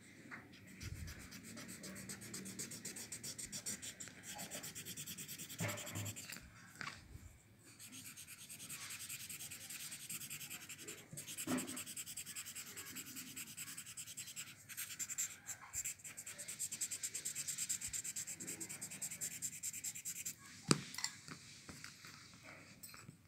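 Paper blending stump rubbing charcoal and graphite into drawing paper in quick back-and-forth strokes, with a brief pause partway through. A single sharp tap near the end.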